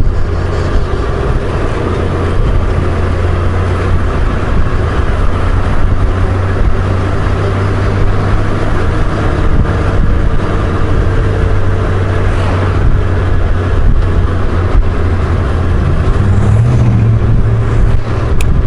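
Honda Gold Wing GL1500 motorcycle cruising, heard from on board: a steady low drone from its flat-six engine under a constant rush of wind and road noise. The engine note lifts briefly near the end.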